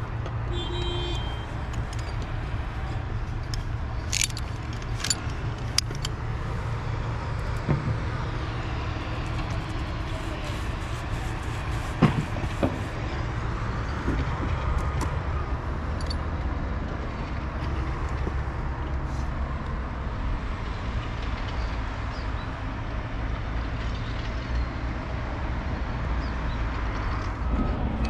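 Steady low outdoor rumble, with scattered sharp clicks and knocks of tools and tile work; the loudest knock comes about twelve seconds in.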